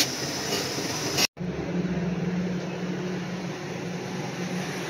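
Motor-driven cloth buffing wheel running against an aluminium motorcycle hub part as it is polished, cut off abruptly about a second in. A steady low hum with hiss follows.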